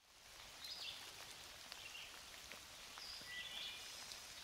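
Faint raindrops pattering in wet woodland as scattered light taps over a steady hiss, with a few short bird chirps.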